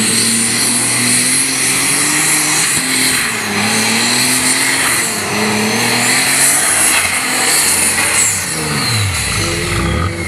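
Competition pulling tractor's engine at full power dragging the weight sled, its pitch wavering up and down under a high whine that rises and falls. After about eight and a half seconds the engine pitch drops steeply as the tractor bogs down, short of a full pull.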